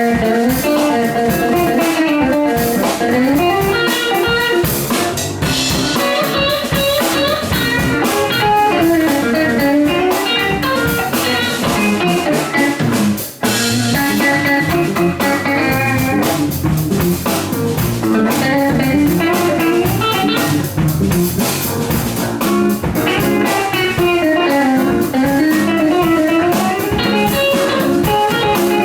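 Live band playing an instrumental jam: guitar lines over a drum kit, continuous throughout, with a brief drop about two-thirds of the way through.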